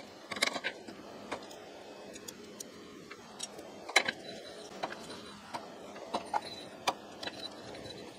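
Scattered small metal clicks and clinks as a hand crank is fitted onto a shaft of a DoAll milling machine's gearbox and turned. The sharpest clink comes about four seconds in.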